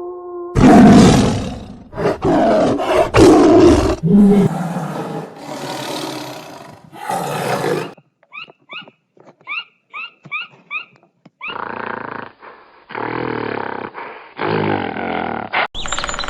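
Wild animal roars and rough calls, loud for several seconds. Then a run of about a dozen short, high chirping calls, followed by more rough calls.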